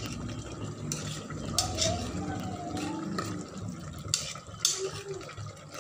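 Jaggery syrup and rice bubbling in an aluminium pressure cooker as it cooks down, with a metal spoon stirring and a few sharp clicks of the spoon against the pot.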